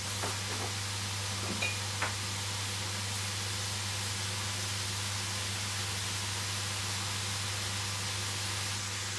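Bean sprouts sautéing in a frying pan: a steady sizzling hiss, over a low steady hum, with a few light clicks in the first two seconds.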